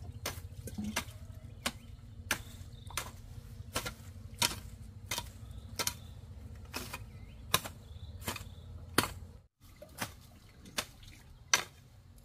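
A steady rhythm of sharp strikes, about three every two seconds, over a low hum that cuts off suddenly about nine and a half seconds in.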